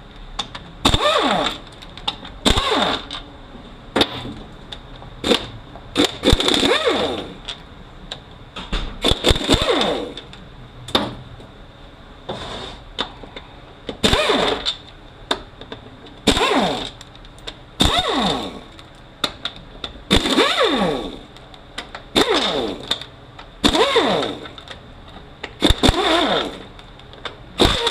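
A power tool spinning T50 Torx bolts out of a transfer case in about a dozen short bursts, roughly one every two seconds, each with a swooping pitch. Sharp clicks and knocks of metal parts come in between.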